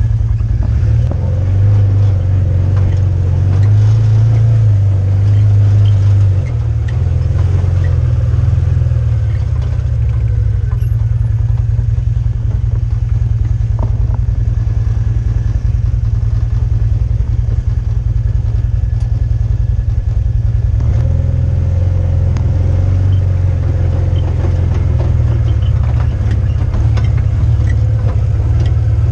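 Side-by-side UTV engine running while driving, a steady low drone that swells in the first few seconds and again from about two-thirds of the way in, with light rattles from the machine.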